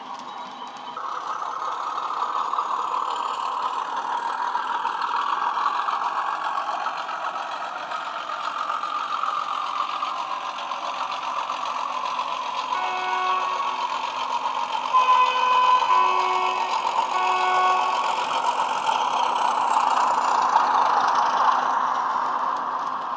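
Class 31 diesel locomotive sound from a model's DCC sound decoder through its upgraded speaker: a steady diesel engine running under power, coming up about a second in. Partway through, a few short horn notes sound, alternating between a lower and a higher tone.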